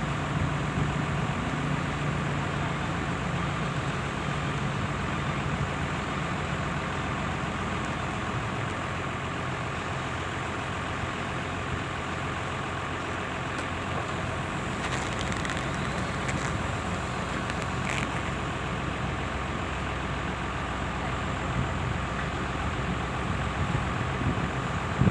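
Heavy diesel engines of a truck and earthmoving machines running steadily, with a few short knocks about two-thirds of the way in.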